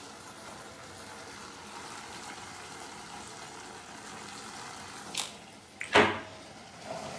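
Vegetables simmering in water in a pan, a steady hiss, broken about five seconds in by a sharp click and then a louder knock.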